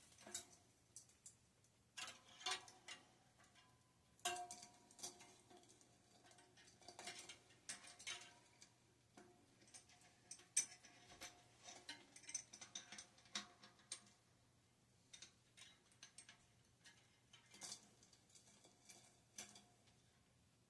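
Faint, irregular metallic clicks and clinks of tools and parts being handled while working the cassette off a bicycle rear wheel, some with a brief metallic ring.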